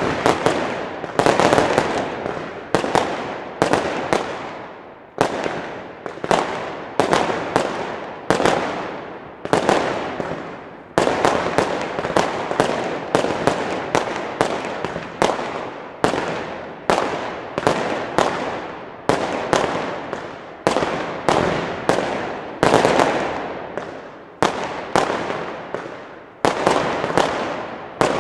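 Consumer firework battery cakes firing: a steady string of sharp bangs as the shells burst overhead, one or two a second, each trailing off in echo.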